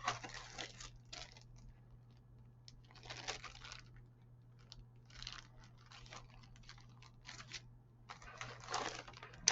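Plastic packaging crinkling and rustling in short bursts, with small clicks, as bagged plastic model-kit parts are handled.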